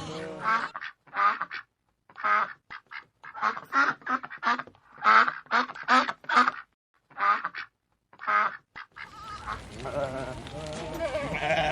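About twenty short, pitched animal calls in quick clusters, with silence between them, ending about 9 s in.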